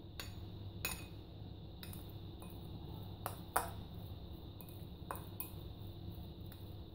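Metal fork clinking and scraping against a small glass bowl while mashing soft strained cheese: light irregular clinks, the loudest about halfway through.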